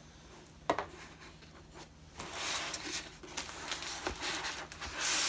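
A rolled diamond-painting canvas being unrolled by hand on a table: a single click about a second in, then rustling of the canvas and its covering sheet that builds from about two seconds in and is loudest near the end.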